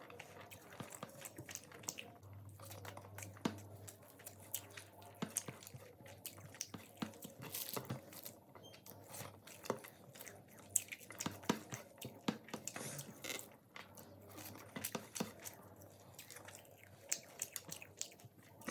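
Close-miked eating: a person chewing and biting food, with irregular crunches and sharp wet mouth clicks throughout.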